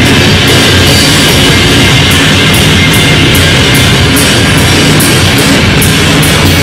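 Loud live experimental noise music from a trio: a dense, steady wall of noise over held bass tones, with sharp hits in the top end about two to three times a second.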